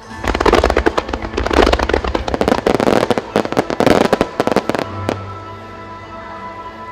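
A rapid barrage of aerial fireworks bursting, dozens of sharp bangs in quick succession, over music. The barrage stops about five seconds in with one last bang, leaving the music playing.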